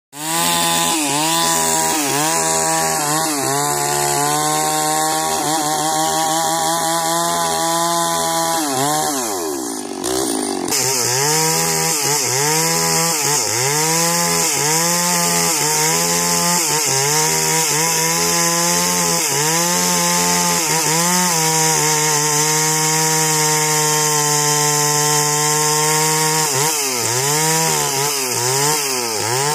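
Two-stroke chainsaw running under load as it rips lengthwise through a parota log, its engine pitch wavering as the bar bites. About ten seconds in the engine briefly drops in pitch and level, then picks up again and keeps cutting.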